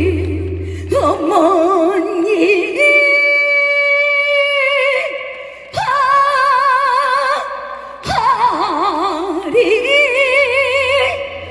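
A woman singing a trot song live with wide vibrato, holding long notes with short breaks between phrases, over backing music.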